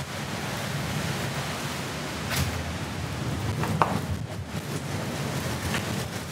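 Steady rushing noise of wind and weather outside the building, with a few light clicks and knocks.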